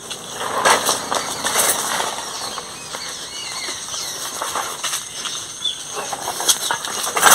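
Old rod-brake roadster bicycle rattling and clattering as it rolls slowly over a rough, stony dirt path, with scattered knocks from the wheels hitting stones.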